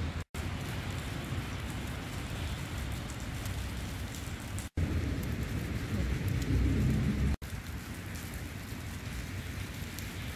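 Outdoor ambience in heavy wet snowfall: a steady rain-like hiss with a low wind rumble on the microphone, broken by brief dropouts about half a second in, near five seconds and past seven seconds.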